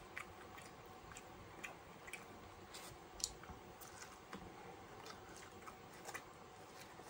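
Faint mouth sounds of a person biting and chewing fried corn on the cob: soft, scattered clicks and smacks, one a little louder about three seconds in.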